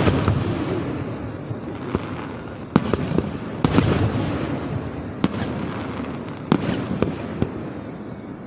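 Fireworks display going off: a series of sharp bangs, the loudest right at the start, near three to four seconds and about six and a half seconds in, over a continuous low rumble of booms.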